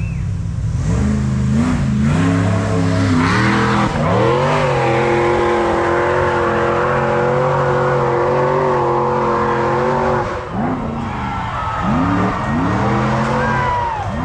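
High-horsepower off-road hill-climb vehicle's engine revving: a few rises and falls, then held at high revs for about six seconds, then dropping off and blipped several times near the end.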